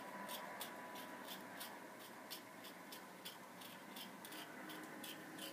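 Faint, steady ticking, evenly spaced at about three ticks a second, over low room noise.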